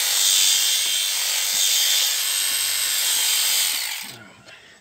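Electric sheep-shearing handpiece running steadily as it clips a lamb's fleece, then winding down and stopping about four seconds in.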